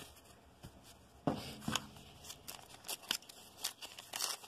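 Foil wrapper of a 1990 Upper Deck baseball card pack crinkling in the hands as the pack is worked open and its cards handled. It comes as irregular short crackles and clicks, with a louder rustle about a second in.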